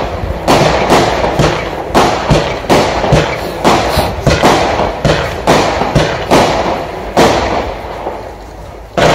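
Firework cake (Cube Fireworks 'Possessed' 63-shot barrage) firing its shots in quick succession, about two a second, each a sharp thump followed by the hiss of bursting stars. The shots stop about seven seconds in, and one more sharp thump comes near the end.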